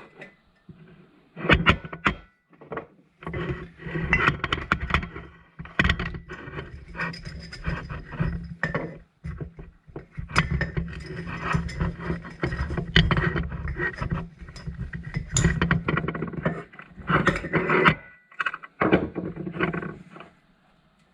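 Hand tools and metal parts of a submersible water pump knocking, clicking and scraping irregularly as the pump is taken apart, with a few short pauses; the work stops just before the end.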